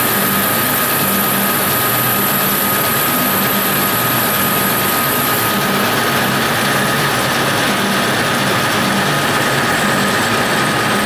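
Metal lathe running under a cut, turning down a solid aluminum bar: steady machine running noise with a constant whine, and a very high thin whistle that drops out about halfway through.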